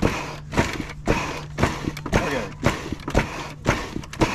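Hand hammer striking hot iron on an anvil in a steady rhythm, about two blows a second, bending the bar.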